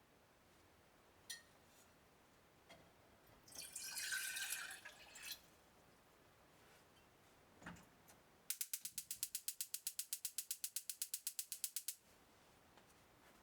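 A rapid, even run of sharp mechanical clicks, about nine a second for three and a half seconds, like a ratchet turning. Before it, a single click, a brief rustle and a soft knock.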